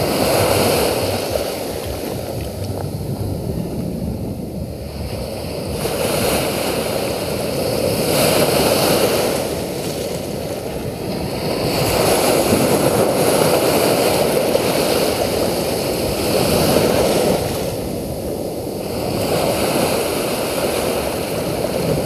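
Small sea waves breaking close by and washing up over sand and small pebbles at the water's edge, the surf swelling and fading every few seconds.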